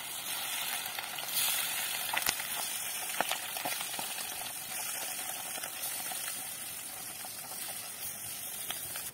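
Masala-coated river fish frying in hot coconut oil in a steel kadai: a steady sizzle with scattered sharp pops, the fish freshly laid into the oil.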